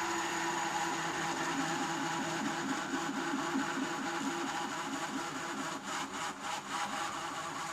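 Power drill running steadily under load, its motor hum wavering slightly as the bit cuts into granulated rubber.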